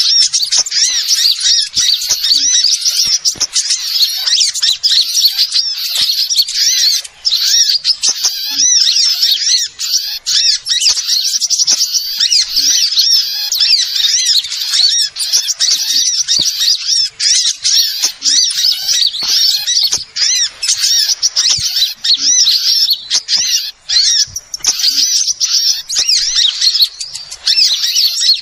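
Dense, loud, unbroken chatter of many small birds: rapid high chirps and wavering twitters overlapping with no pauses. It is a lure (pikat) recording used to draw in sunbirds and other small birds.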